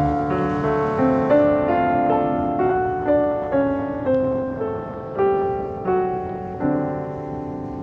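Background piano music: a slow melody of single notes and chords, each struck and left to fade.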